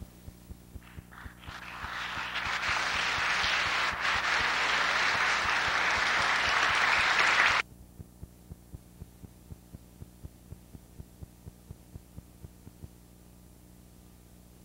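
Audience applauding, starting with a few scattered claps and building to full applause, then cut off abruptly a little over halfway through. After it, only a faint steady hum with a soft regular ticking.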